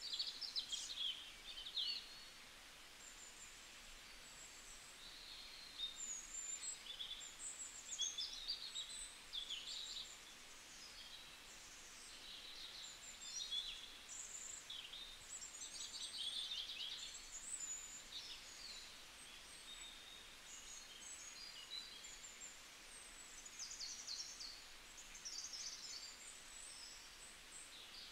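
Birds chirping and trilling: many short, high-pitched calls and quick trills, one after another, over a faint steady hiss.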